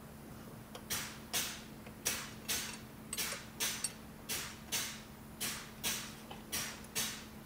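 Ratcheting wrench clicking through quick back-and-forth strokes, two to three a second, as an already loosened turbocharger mounting bolt is spun out.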